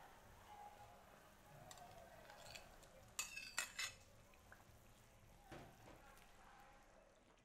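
A metal ladle scraping and clinking against a ceramic plate as sliced beef and eggs are pushed off it into a pot, in a quick cluster about three seconds in, then a softer knock of the ladle in the aluminium soup pot.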